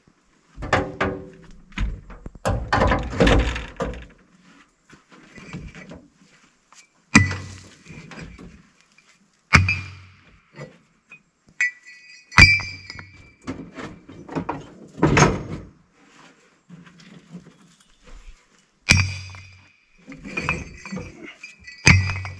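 Heavy steel railway tie plates being dropped onto a scrap-metal pile one after another: loud metal clanks every couple of seconds, several of them leaving a ringing tone after the hit.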